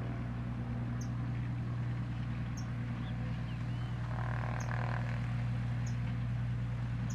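Cessna 182P Skylane's six-cylinder Continental engine and propeller running at low taxi power, a steady low drone. A few short high chirps sound over it.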